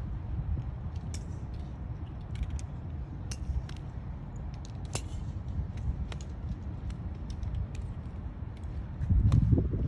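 Wind rumbling on the microphone, with scattered sharp clicks of golf clubs striking balls as several players hit on a driving range. A stronger gust comes near the end.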